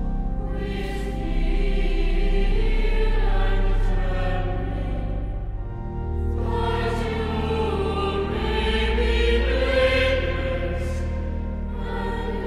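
Choir of men and boys singing sacred choral music, with long low organ notes held underneath.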